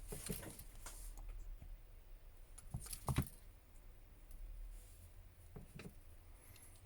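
A few small clicks and taps of hand tools on a smartphone's internal parts during disassembly, the loudest pair about three seconds in.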